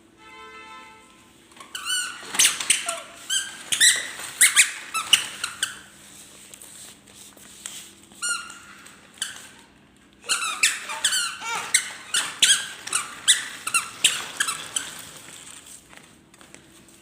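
Rapid high-pitched squeaks, several a second, in two long runs with a short pause between them.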